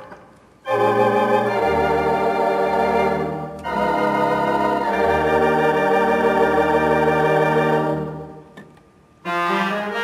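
Barton theatre pipe organ playing sustained full chords on a registration with a great many stops drawn, over a deep held bass note. The chords change a couple of times, break off about eight seconds in, and a short chord sounds near the end.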